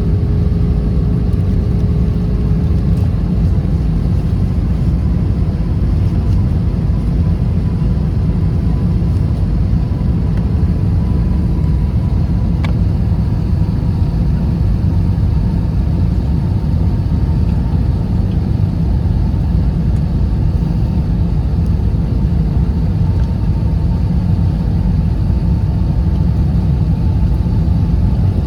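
Steady airliner cabin noise: a loud, even rumble of engines and airflow with a faint steady hum over it, and one small click about halfway through.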